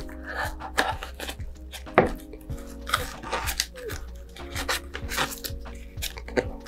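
Thin plastic film, like a produce bag, crinkling and rustling in irregular crackles as gloved fingers smooth it over wet epoxy and fiberglass wrapped around a model rocket tube. Soft background music runs underneath.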